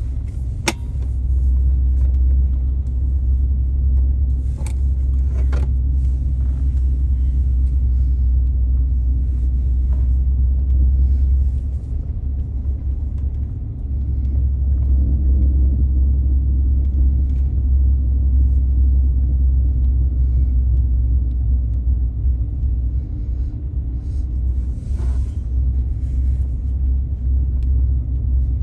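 Low, steady rumble of a car driving slowly, heard from inside the cabin, easing off briefly about halfway through, with a few faint ticks or knocks.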